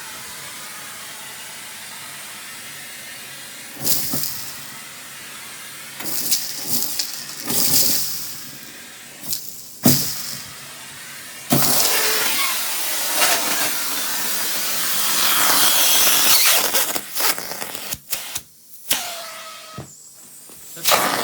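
Central vacuum running through its hose, a steady rush of air broken by sudden loud surges as debris is sucked up, with a long loud stretch about halfway through and choppy dips near the end.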